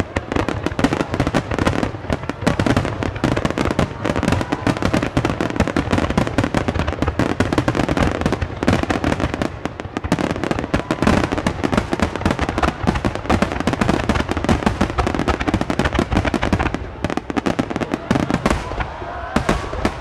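A dense barrage of fireworks: booms and crackles packed closely together with hardly a gap, thinning out a little near the end.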